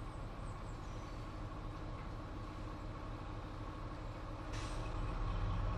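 Class 70 GE PowerHaul diesel locomotive's engine running with a steady low rumble. About four and a half seconds in, a rush of hiss starts and the sound grows louder.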